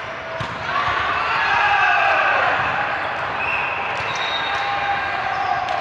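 Volleyball game in a gym: the ball struck a few times with sharp smacks amid players' shouts and calls.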